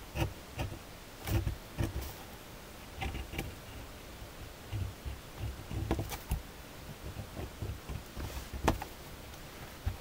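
A ballpoint pen drawing on paper and being handled: irregular short scratches, rubs and soft knocks against the paper and table. The loudest knock comes near the end.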